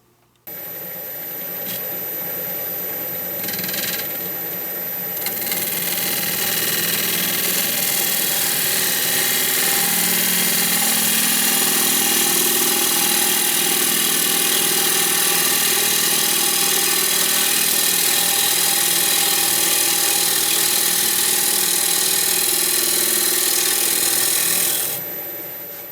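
Power tool running steadily on a wood lathe turning a curly maple bowl blank. It starts abruptly, grows louder over the first several seconds, then holds steady before dying away near the end.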